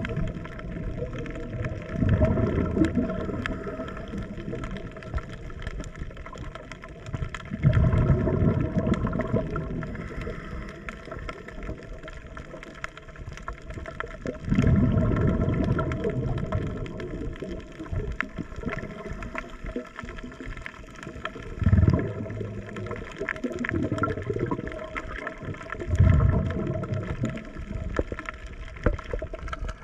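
Underwater sound from a scuba diver's camera: exhaled bubbles from a diver's regulator gurgling in five low bursts, one every five to seven seconds, over a steady underwater hum.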